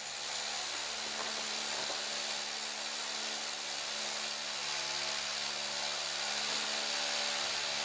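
Electric drill running steadily while boring overhead into a concrete ceiling slab, a continuous motor whine with a grinding hiss.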